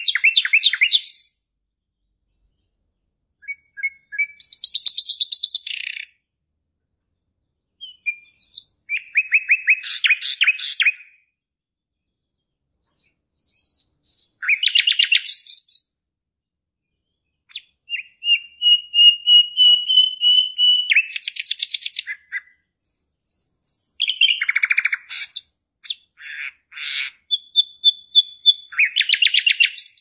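A caged songbird singing in about seven varied phrases with short pauses between them. The phrases mix rapid trills with whistled notes, and there is one long, steady whistled note near the middle.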